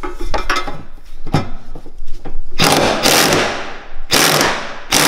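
Work on a car's exhaust system from underneath: a run of sharp metal clicks and knocks from a tool on the pipe fittings, then three loud bursts of rushing noise, the longest about a second.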